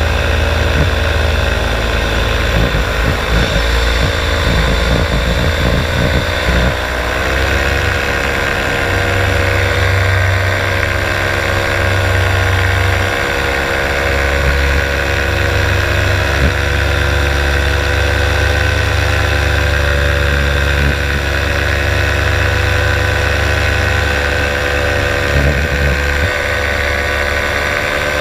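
Paramotor engine and propeller running steadily in flight, with wind rumbling on the microphone. The engine note shifts about six seconds in and then holds steady.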